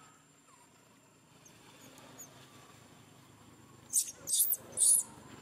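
Baby long-tailed macaque giving three shrill, high-pitched squeals in quick succession, about four seconds in.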